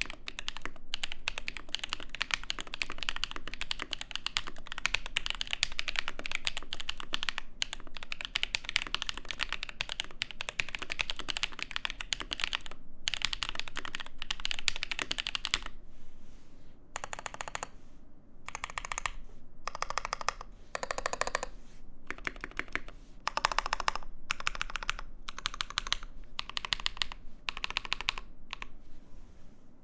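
Typing on a Mode Eighty gasket-mount mechanical keyboard with lubed and filmed Mint Holy Panda tactile switches, an aluminum plate and GMK doubleshot ABS keycaps. The typing is continuous and fast for about the first half, then comes in short bursts of rapid keystrokes with brief pauses between them.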